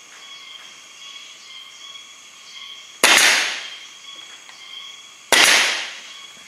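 Pneumatic nail gun firing twice, a little over two seconds apart, driving nails into the wooden frame of a beehive box. Each shot is a sharp crack that trails off over about half a second.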